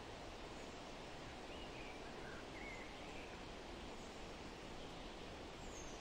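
Steady outdoor background hiss, with a few faint, short bird chirps between about one and a half and three seconds in.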